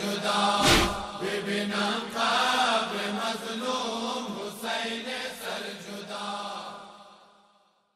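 Voices chanting a Shia mourning lament (nauha) over a steady low tone, with a heavy thump about a second in. The chant fades out near the end.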